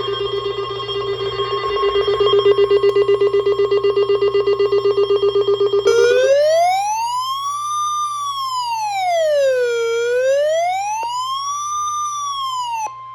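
Electronic alert sounds before the warning broadcast. A rapidly pulsing buzzy tone lasts about six seconds. It gives way to a siren wail that rises and falls twice, about four seconds per cycle, over a steady high warning tone, which is left sounding alone briefly at the end.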